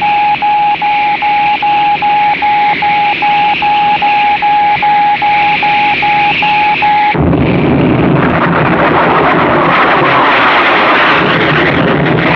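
Film sound effects of a spaceship. First an electronic signal beeps steadily in the cabin, about two and a half pulses a second over a hiss. About seven seconds in it cuts off abruptly to a loud rushing roar of the rocket ship descending over the snowfield.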